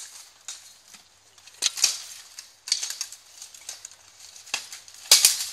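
Steel longswords striking each other and plate armour in armoured sparring: an irregular string of sharp metallic clanks with a short ringing tail, the loudest a quick pair near the end.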